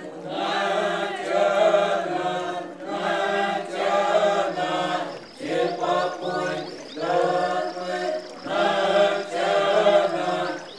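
Several voices chanting together in short repeated phrases, with brief breaks between them, over a steady low note.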